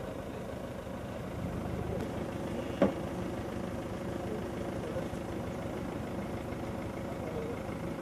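An engine idling steadily, with one short knock about three seconds in.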